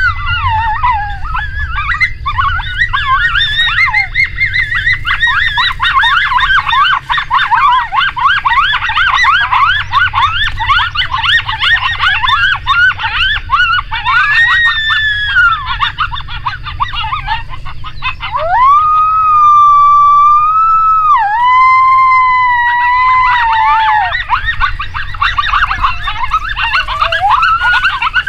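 Coyotes yipping and howling: a fast, warbling chorus of yips. About two-thirds through come two long, steady howls, the second a little lower, before the yipping picks up again.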